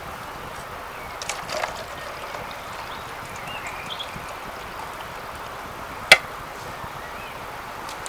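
Hot tea being poured from a small metal pot into a plastic bottle, over a steady background rush of water. A single sharp click about six seconds in is the loudest sound.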